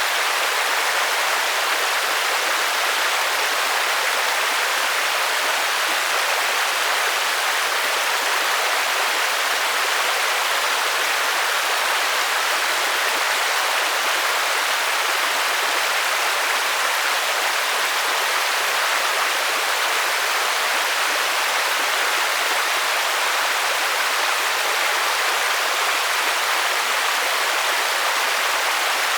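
Steady rain, an even hiss of falling water with little low end and no single drops or other sounds standing out.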